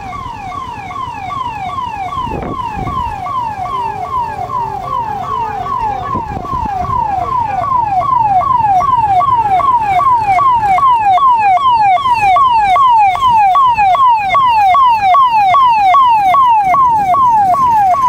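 Ambulance siren wailing in quick, repeating downward sweeps, a little over two a second. It grows louder over the first half as the ambulance approaches, then stays loud.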